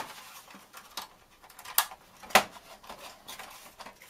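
Hard plastic parts of a PlayStation 4 being handled and fitted as its internal power supply goes back into the open chassis: a few scattered clicks and knocks, the loudest about two and a half seconds in.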